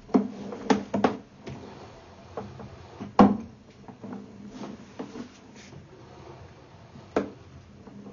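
Irregular knocks and clunks, about ten of them at uneven spacing, like things being handled and set down; the loudest comes a little past three seconds in.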